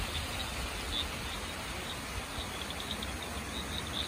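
Outdoor rural ambience: insects chirping in short, high, scattered calls, with a quick run of chirps midway, over a steady low rumble.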